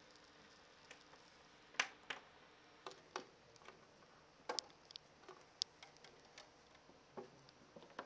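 Irregular sharp clicks and light knocks, about two a second, the loudest about two seconds in, from the reflector petals of a Hawkeye III portable satellite antenna being handled and fitted together.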